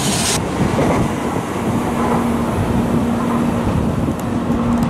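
N700-series shinkansen train running past: a steady rush of running noise, with a hum that cuts in and out from about two seconds in.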